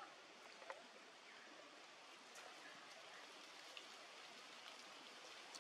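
Near silence: a faint, steady outdoor hiss with a few soft, scattered ticks.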